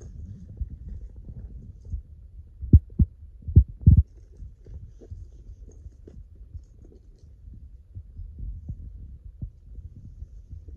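Close handling noise: a low, muffled rumble with soft thumps as a phone and a handbag and its strap are moved about by hand, with four louder dull thumps a little under three to four seconds in.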